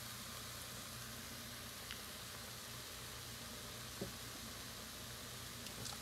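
Drained instant noodles and spicy sauce sizzling in a pot on the hot stove: a faint, steady hiss, with a small click about four seconds in.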